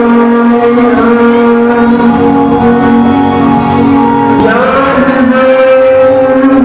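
A Sufi song with a singer holding long notes over instruments, with a new phrase starting about four and a half seconds in.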